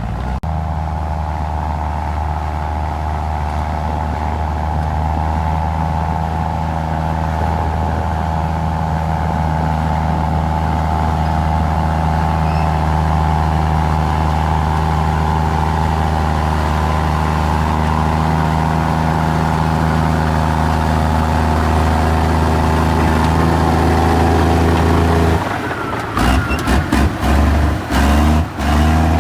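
Diesel engine of a Komatsu D53E crawler bulldozer running steadily at working revs. From about 25 seconds in, the sound is broken by several sudden dropouts and sharp clicks.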